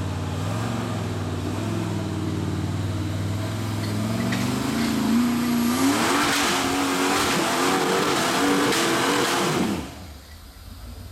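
Jeep rock crawler's engine revving under load as it climbs a steep rocky hill. Its pitch rises in steps about halfway through, then it cuts back abruptly near the end.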